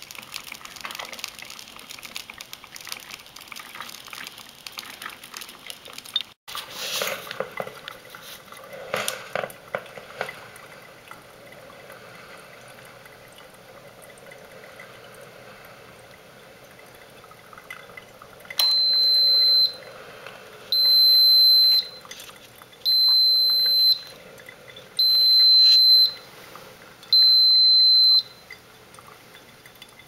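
Mr. Coffee FTX41CP coffee maker finishing its brew cycle: soft hissing and gurgling sputters, then five long, high-pitched electronic beeps about two seconds apart, the alert that the brew is complete.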